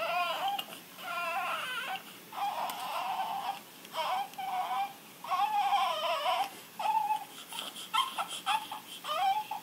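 Newborn baby crying: a run of wavering wails about a second each, breaking into shorter, choppier cries in the last few seconds.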